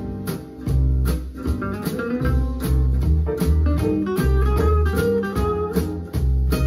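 Instrumental passage of a French-language song: guitar over a heavy bass line and drums with a steady beat, no vocals.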